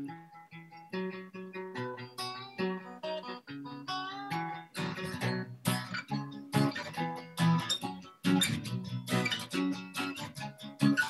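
Guitar played live: separate picked notes and chords at first, then fuller strumming from about five seconds in.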